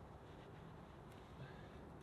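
Near silence: faint outdoor ambience with two faint clicks.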